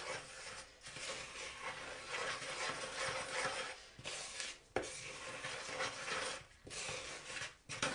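Wooden spoon stirring dry self-raising flour and caster sugar in a plastic mixing bowl: a dry scraping rustle in strokes, broken by several short pauses, with one sharp tap of the spoon near the middle.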